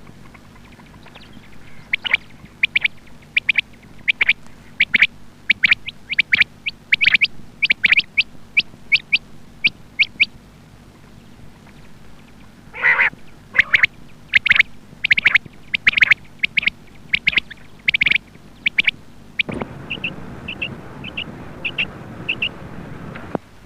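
Female quail (batair) calling: a rapid series of short, high-pitched calls, about two to three a second, with one longer, harsher call partway through. Later the calls go on softer and quicker against a changed background hiss.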